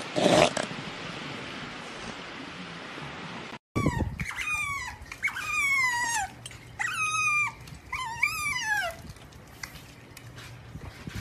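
A young elephant seal's call ends in the first half-second. After a short gap, an otter gives a run of high squeaking calls, each sliding down in pitch, for about five seconds.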